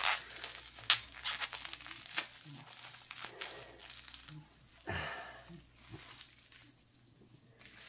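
Clear plastic packing wrap crinkling and crackling in irregular bursts as a hatching egg is unwrapped by hand, busiest in the first couple of seconds.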